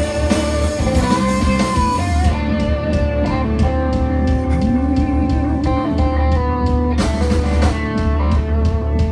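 Live rock band playing an instrumental passage: two electric guitars, a Les Paul-style and a Telecaster-style, over bass and drums, with one guitar note sliding upward about halfway through.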